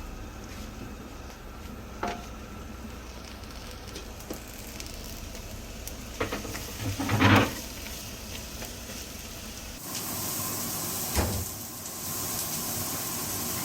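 Chopped onions sizzling as they fry in hot oil in a pan, with a few short knocks, the loudest about seven seconds in. The sizzle gets louder and brighter about ten seconds in.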